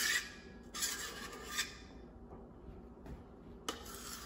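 A spatula scraping cake batter out of a stainless steel mixing bowl into a metal cake pan: a tap, then three short squeaky scrapes, the last near the end.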